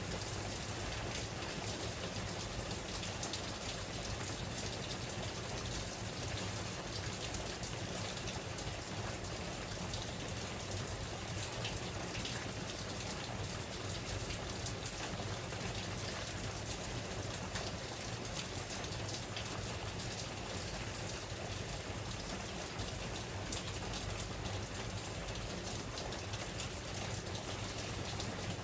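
Pouring rain: a steady hiss thick with fine drop ticks, with a steady low hum underneath.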